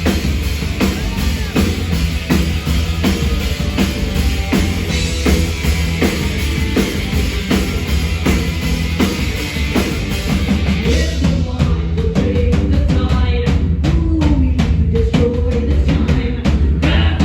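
A rock band playing live: a steady drum beat over a sustained bass, with a melody line coming through in the second half.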